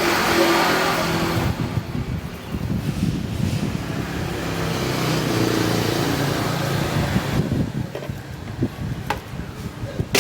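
Honda Vario Techno 110 scooter's single-cylinder four-stroke engine running, revved up about four seconds in and dropping back near seven seconds.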